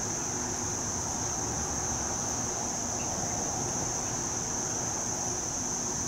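Steady outdoor ambience: a constant high-pitched insect chorus, like crickets, over a low rumble of distant traffic.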